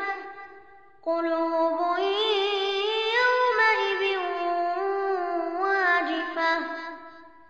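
A child's voice reciting the Quran in melodic murattal style: one long chanted phrase of held notes with ornamented pitch turns, starting about a second in and fading out with an echo near the end.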